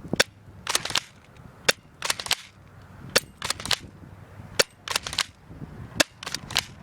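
Stinger S32P airsoft pistol firing repeatedly: about a dozen sharp snapping clicks, mostly in quick pairs or triplets every second or so.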